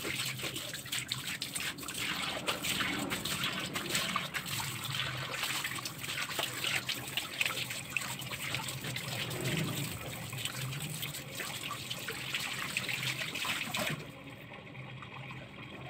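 Water running from a tap and splashing as a man washes his hands and feet under it. The tap is turned off near the end, and the running water stops abruptly.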